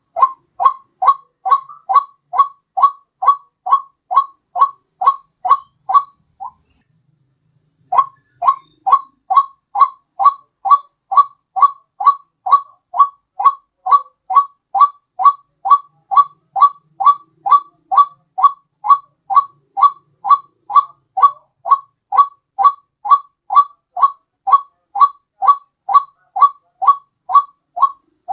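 White-breasted waterhen ('ruak-ruak') call played as a bird lure: a short two-part 'ruak' note repeated steadily, about two a second. The calls pause for about a second and a half some six seconds in, then carry on.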